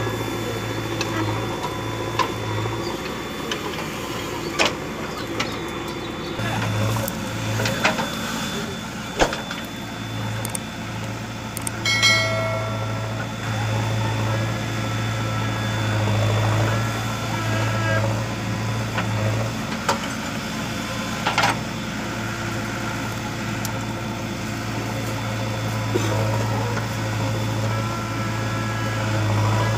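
JCB 3DX backhoe loader's diesel engine running under digging load, its low drone easing off and coming back as the hydraulics work the bucket, with sharp knocks of the bucket and clods of earth several times. A brief high-pitched squeal sounds about twelve seconds in.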